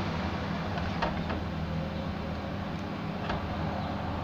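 A wooden spatula scrapes and knocks against a non-stick frying pan a few times as thick curry is scooped into a bowl, over a steady low hum.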